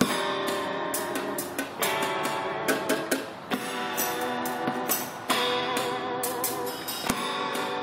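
Electric guitar played through a small amplifier, strumming sustained, ringing chords, with sharp cymbal and drum hits from a percussion rig built on a hand truck.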